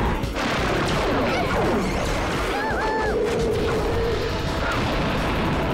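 Cartoon battle soundtrack: action music under a run of blasts and crashes, with a short electronic warbling zap about three seconds in.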